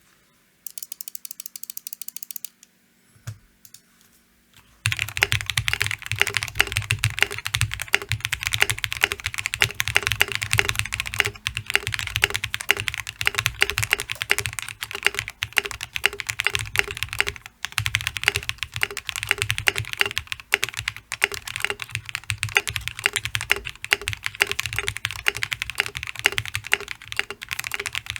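Fast, continuous typing on a Space65 custom mechanical keyboard with lubed Durock POM switches, an FR4 plate and case foam. A brief, quieter run of ticking comes first, then a pause with a single click. The full typing starts about five seconds in and runs without a break.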